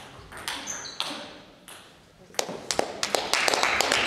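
A table tennis ball knocking back and forth off bats and table, with a short ringing ping on each hit, for a few last strokes of a rally. After a brief lull, from about two and a half seconds in, spectators start clapping and the applause builds.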